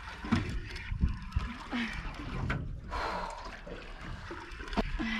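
Water lapping and trickling against a small boat's hull, with a few sharp knocks.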